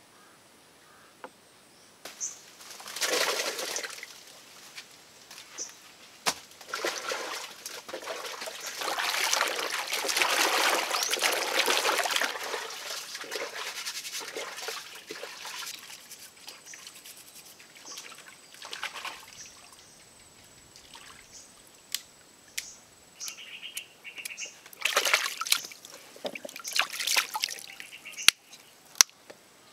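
Hands washing freshly dug turmeric rhizomes in a plastic basin of muddy water: sloshing and splashing, heaviest in the first half, then lighter splashes and drips with another burst of sloshing near the end.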